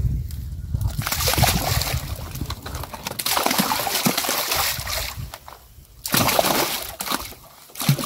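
Live carp tipped from a plastic crate into a lake, splashing into the water in three bursts of splashing.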